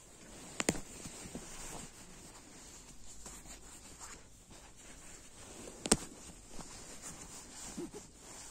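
Faint rustling as a hand handles and rubs the synthetic fabric of a camouflage jacket and slips into its pocket. Two sharp clicks, about half a second in and near six seconds in, the second one louder.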